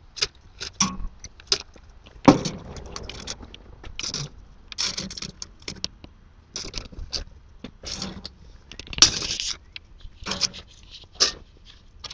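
Metal grill tongs clicking and scraping on the grill racks, with aluminium foil crinkling, as foil-wrapped potatoes are lifted off and set into a metal pot; one sharp clank about two seconds in.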